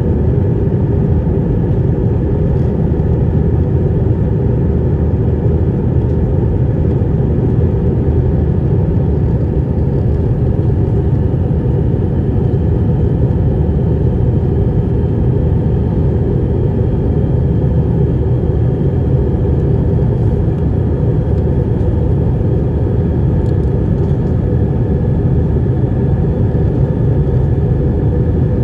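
Airbus A319's twin jet engines running at climb power just after takeoff, heard inside the cabin as a loud, steady rumble of engine and airflow noise. A faint high whine rises slightly from about twelve seconds in.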